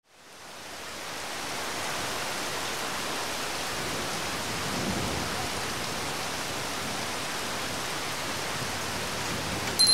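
Steady rain fading in over the first couple of seconds, then holding even. A sharp, high bell-like ring starts right at the end.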